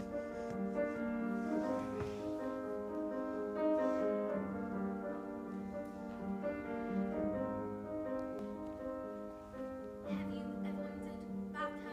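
Grand piano playing a solo introduction in held, overlapping notes.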